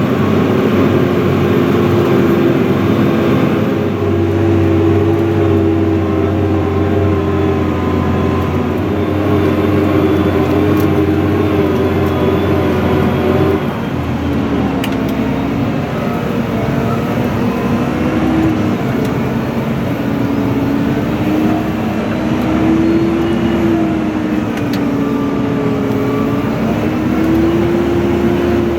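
Fendt 724 Vario tractor's six-cylinder turbocharged Deutz diesel running under load while pulling a six-furrow reversible plough, a steady drone. About halfway through the sound changes, the engine note dropping slightly and then rising and falling gently.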